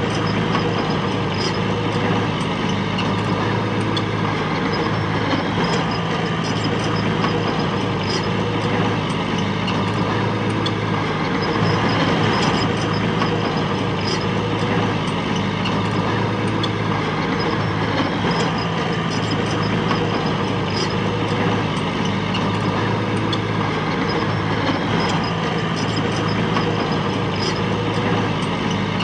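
Diesel engine of heavy earthmoving machinery running steadily, with light scattered ticks and clinks over it.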